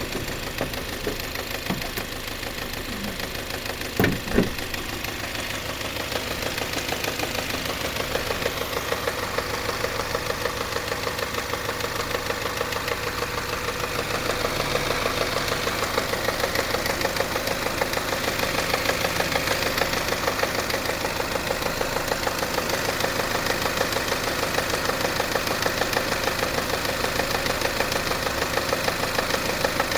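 Subaru CB18 1.8-litre turbocharged flat-four idling cold with a fast, even ticking knock, which the owner takes for something striking inside the engine at cold start. Two louder sharp knocks come about four seconds in.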